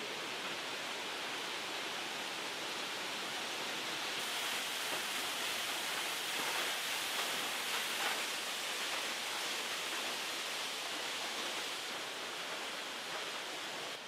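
Steady rush of falling water from a rainforest waterfall, an even hiss with no breaks. Its tone shifts slightly about 4 seconds in and again near the end.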